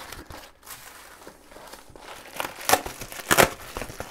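Silver foil packaging crinkling as hands unwrap it, with two louder crinkles in the second half.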